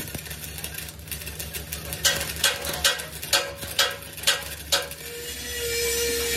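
A hammer striking steel seven times, about two blows a second, each blow ringing briefly, over a steady low machine hum. About five seconds in, a steady higher hum takes over.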